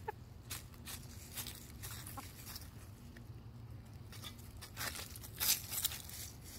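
A white hen pecking and scratching through dry leaf litter: irregular rustles and crackles of dry leaves, with a cluster of louder crunches about five to six seconds in.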